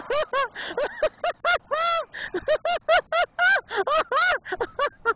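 A woman laughing hard in rapid, high-pitched squealing bursts, several a second, without a break.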